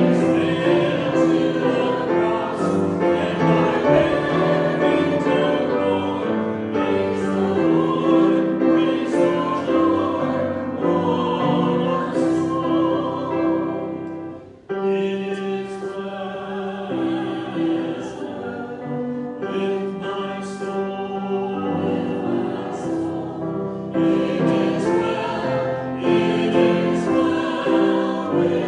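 Voices singing a slow sacred song with piano accompaniment, with a short break between phrases about halfway through.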